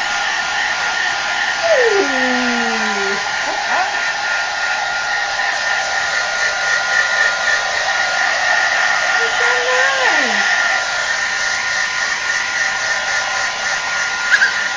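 Handheld hair dryer running steadily: a constant blowing rush with a steady high whine from its motor.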